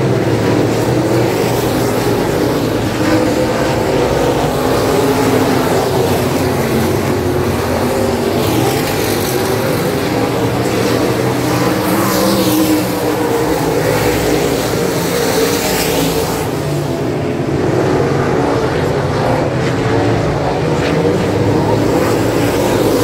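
Super Stock dirt-track race cars running at racing speed, a pack of engines making a steady loud drone. Around the middle several cars pass close by, their engine notes rising and falling as they go past.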